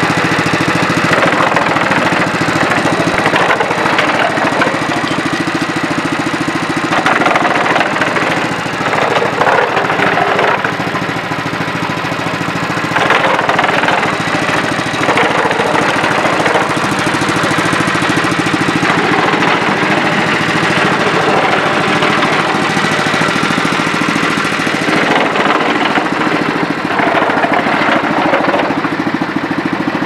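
Small gas engine of a Stone 95 cm concrete mixer running steadily, with a fast, even firing beat.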